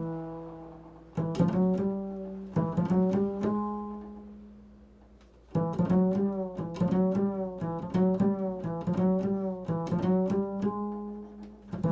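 Upright bass played pizzicato in a slow, improvised solo. A few plucked notes are left to ring and fade, then a quicker run of plucked notes starts about five and a half seconds in.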